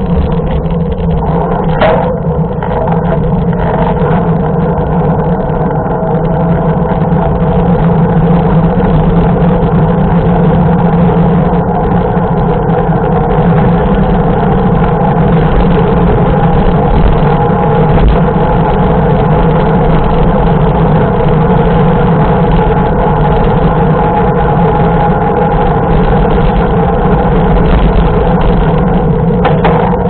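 Steady rush of wind buffeting a bike-mounted camera's microphone, over the hum of a mountain bike's knobby front tyre rolling on asphalt.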